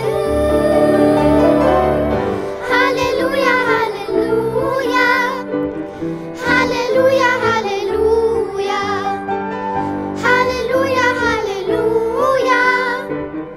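Music: a worship song sung with instrumental accompaniment, the voice in phrases of a second or two over sustained chords.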